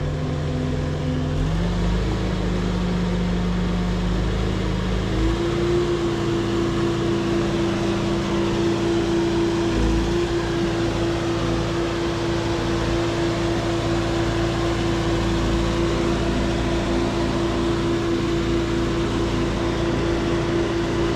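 Engine of a heavy machine running, its speed stepping up about a second and a half in and again about five seconds in, then held steady at high revs with a brief dip near the ten-second mark.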